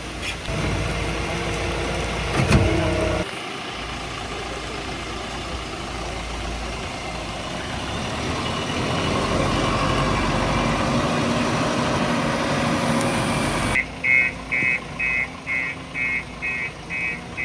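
JCB 3DX Plus backhoe loader's diesel engine running steadily, with a brief loud clatter about two and a half seconds in. After a cut near the end, an electronic beep repeats about twice a second.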